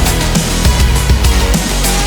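Loud, hard-edged background music with heavy drums and a driving beat.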